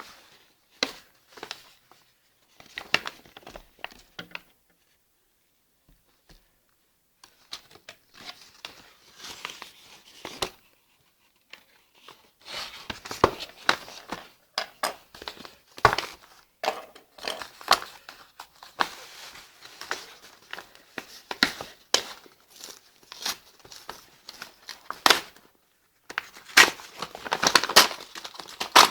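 Packaging being handled and opened: crinkling and rustling of plastic and cardboard in irregular bursts of sharp rustles and clicks, with a short pause a few seconds in and busier handling in the second half.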